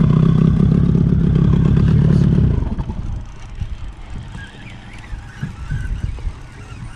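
Boat outboard motor running steadily, then dropping away sharply about two and a half seconds in, leaving a much quieter background with a few faint knocks.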